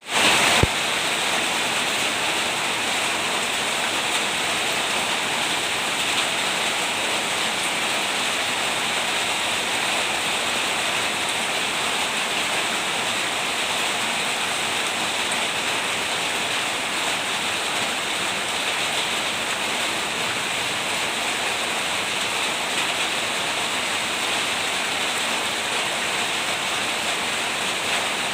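Rain falling steadily: an even, unbroken hiss of rain.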